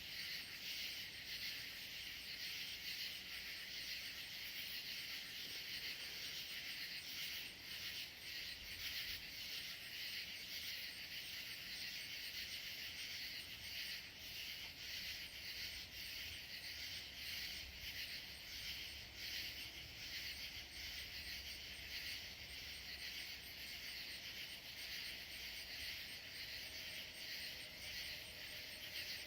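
Chorus of night insects, crickets chirping steadily with a fast, even pulse.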